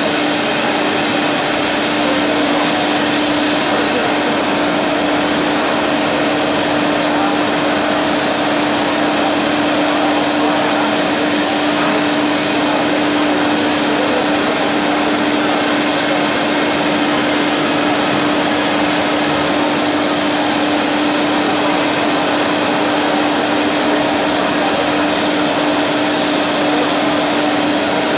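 CNC wood machining centre (nesting router with boring head) running, a constant steady hum over an even rushing noise.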